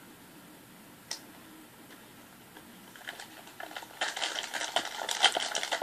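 Beads in unactivated slime glue being stirred in a plastic bowl: a dense, irregular clicking and crackling that starts about halfway in and grows louder toward the end, after a single click about a second in.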